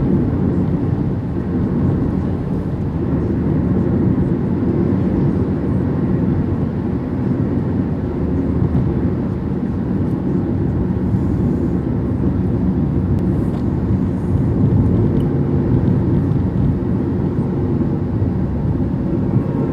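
Steady road and engine noise of a car driving along a highway, a low rumble that holds even throughout.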